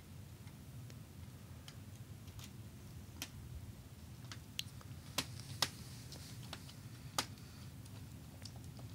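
Light scattered clicks and taps of plastic being handled at the lower corner of a laptop's screen bezel, with a few sharper, louder clicks around the middle.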